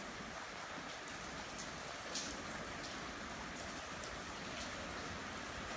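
Heavy rain falling steadily, with scattered drops tapping nearby surfaces and one sharper drip about two seconds in.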